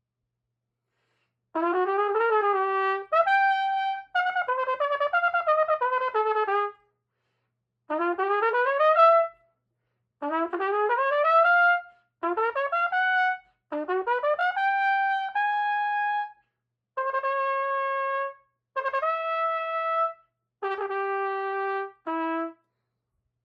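A solo brass instrument plays an audition excerpt: a series of short phrases separated by brief rests, many of them quick upward runs ending on a held note, with steadier held notes near the end.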